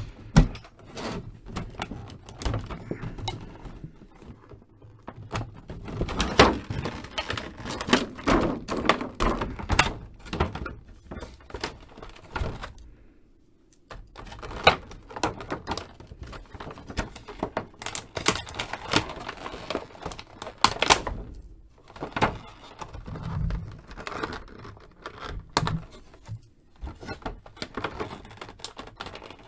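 Clear plastic blister tray of an action-figure package being handled and turned over, crackling and clicking with irregular knocks and rustles, with a short pause about halfway through.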